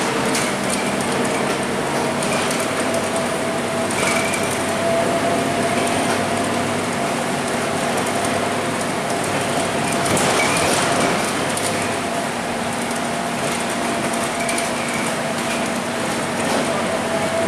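Inside the cabin of a Scania K230UB single-deck city bus under way: the rear-mounted diesel engine running steadily with a steady whine, tyres hissing on a wet road, and a few brief rattles.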